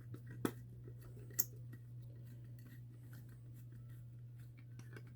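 Faint clicks and small rattles from handling a Federal Signal fire alarm pull station, with two sharper clicks in the first second and a half, over a steady low hum.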